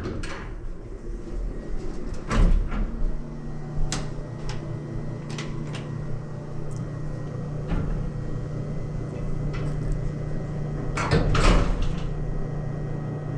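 A door clicking and knocking as it is opened and shut, with a steady low hum setting in a couple of seconds in. A louder clatter comes near the end.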